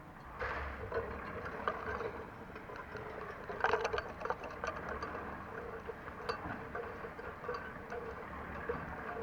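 Construction-site work at a concrete pour: a run of short clinks, knocks and scrapes from tools and materials, busiest about four seconds in, over a steady machine hum.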